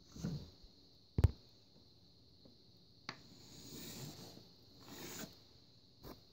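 Pencil scratching along a plastic ruler as a line is drawn on paper, in two soft strokes, with a sharp knock about a second in and a couple of light clicks as the ruler is handled.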